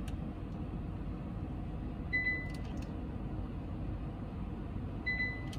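Two short, high electronic beeps from the instrument cluster, about three seconds apart, as the dashboard illumination brightness is stepped with the dimmer button, over a steady low cabin hum.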